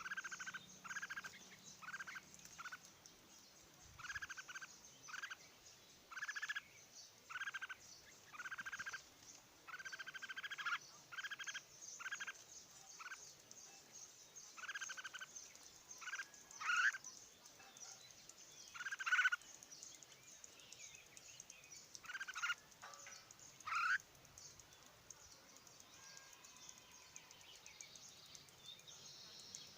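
Red-whiskered bulbuls calling: a long run of short, buzzy, chattering notes repeated about once a second, broken by a few louder rising notes. The calls thin out near the end.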